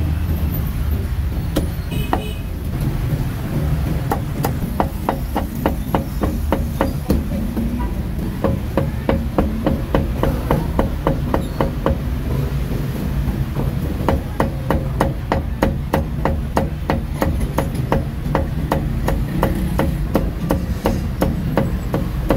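A meat cleaver chopping roast meat on a wooden block: sharp, even chops at about three a second, sparse for the first few seconds and then steady.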